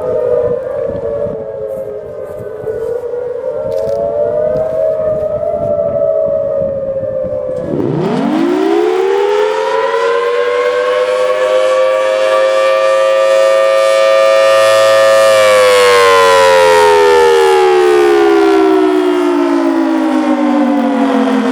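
Several overlapping siren tones wavering up and down, then about eight seconds in a Federal Signal Thunderbolt mechanical siren winds up, its pitch climbing quickly to a steady high wail. It holds for about five seconds, then winds down in a long falling tone.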